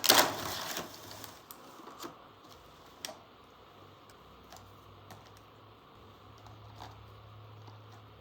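A brief burst of packaging rustle, then scattered light clicks and taps as small plastic toy tool pieces are handled.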